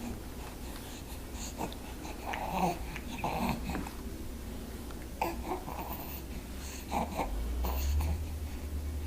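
A young infant, about nine weeks old, cooing and babbling in a few short breathy bursts with pauses between. A low rumble comes in about seven seconds in.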